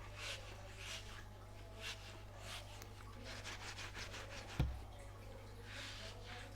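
Repeated short rubbing and scraping sounds, typical of a rubbery stretchy toy dog being handled and stretched. A single sharp thump comes about four and a half seconds in, over a steady low electrical hum.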